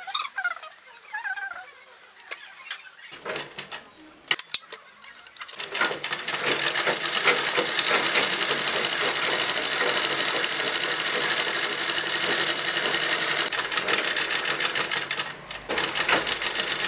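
Usha sewing machine stitching at a fast, steady rhythm for about ten seconds, stopping briefly and starting again near the end. A few light clicks come before it starts.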